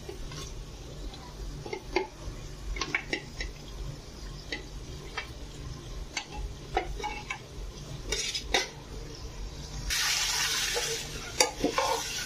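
A steel ladle scraping and clinking against a steel plate and an aluminium pressure cooker as fried chicken pieces are pushed into the masala, in scattered sharp knocks. About ten seconds in, a second-long hiss of sizzling as the chicken is stirred into the hot masala, over a steady low hum.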